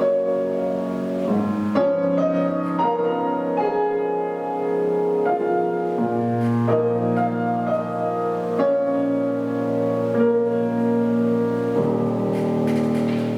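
Solo piano playing a slow classical piece, with held notes and chords ringing into each other and a new chord about every second or two.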